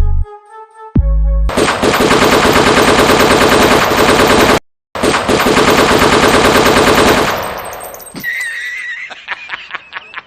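Machine-gun fire sound effect: a loud, very rapid unbroken string of shots lasting about three seconds, cut off briefly, then another three seconds of fire that fades out near the end. Electronic music with a heavy bass plays in the first second or so.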